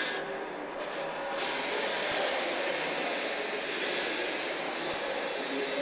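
Geotron angular motor running steadily, a continuous whirring hiss with no break.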